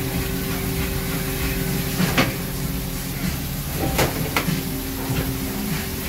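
Steady hum of fish-processing machinery, with a few sharp knocks on the steel table as a large halibut is shifted along it: one about two seconds in and two around four seconds in.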